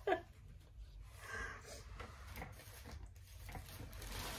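Faint rustling of clothing being handled and moved, with a few light knocks.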